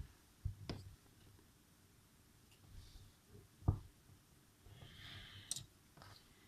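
Faint clicks and light knocks of small phone parts and tools being handled during a smartphone reassembly, the loudest knock about three and a half seconds in.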